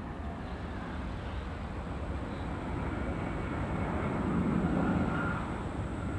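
Jet engines of a McDonnell Douglas MD-11 trijet freighter rumbling as it lands and rolls along the runway, with a faint high engine whine. The rumble swells to its loudest about four to five seconds in.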